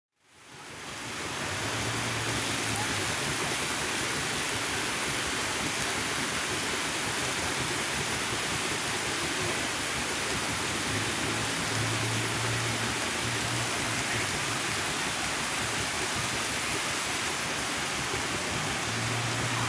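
Park fountain's water jets splashing into a stone pool: a steady rushing splash that fades in over the first second or two.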